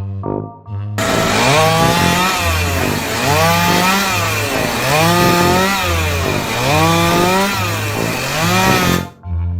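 A small engine revving up and down repeatedly, loud and rasping, over background music with a steady bass beat; it starts about a second in and stops abruptly near the end.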